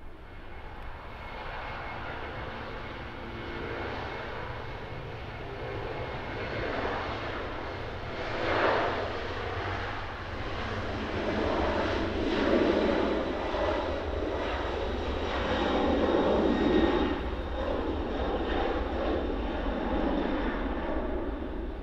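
Jet engines of a Boeing 767 airliner running at takeoff power through the takeoff roll and climb-out: a steady roar with a faint high whine, growing louder about halfway through as the aircraft passes.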